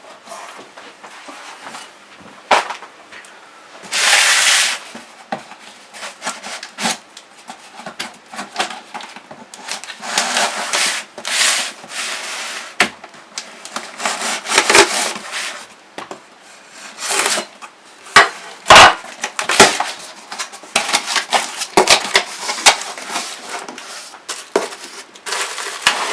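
Cardboard box and packing being opened and handled by hand: irregular knocks, scrapes and rustles, with a loud ripping burst about four seconds in and a sharp knock near the end.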